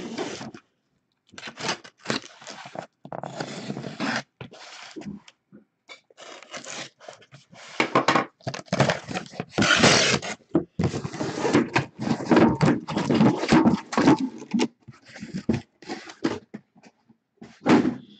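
Cardboard shipping case being opened by hand and the shrink-wrapped card boxes inside slid out and stacked: irregular scraping and rustling of cardboard and plastic wrap with thunks, loudest around the middle.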